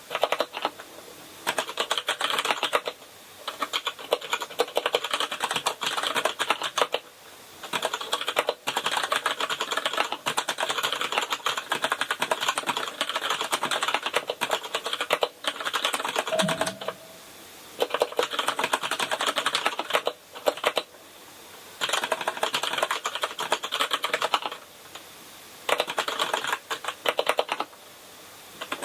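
Steady typing on a Kinesis Advantage ergonomic mechanical keyboard with brown switches: runs of quick key clicks, broken every few seconds by short pauses.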